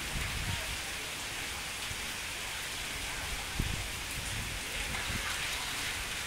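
Steady rain falling on a wet paved pier, an even hiss, with a brief low thump about three and a half seconds in.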